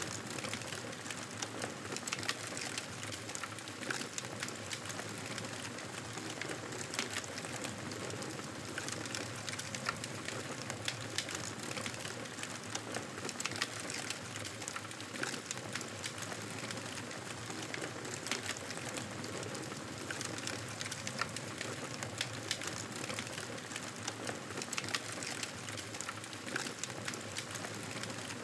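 Campfire crackling, with frequent sharp pops and snaps over a steady hiss.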